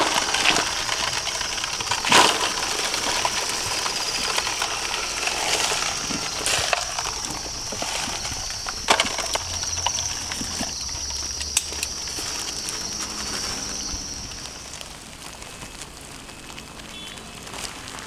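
Crickets singing in one steady high-pitched song that stops about fifteen seconds in. Over it are the crinkle of a plastic bag and rustling, with a few sharp knocks as crickets and cardboard egg trays are handled in a plastic basin.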